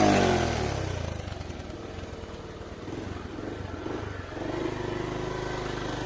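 Motorcycle engine running just after being started, its revs falling back over the first second or so, then running steadily.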